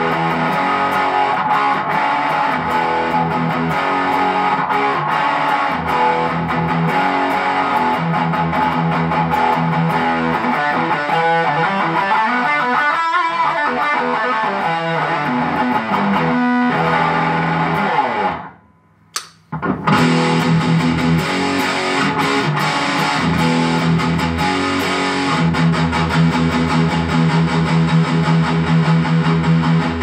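Electric guitar played through a ProCo RAT2 distortion pedal and a Boss GE-7 equalizer into an amp, giving a heavily distorted tone. The playing stops briefly a little over halfway through, then starts again.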